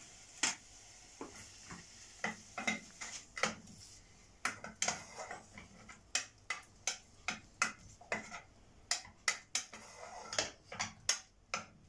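Wooden spoon stirring bacon in a non-stick saucepan, knocking and scraping against the pan about twice a second, over a faint sizzle of the bacon frying in olive oil.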